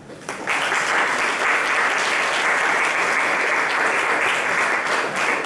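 Audience applause in a small hall, steady clapping that starts about half a second in.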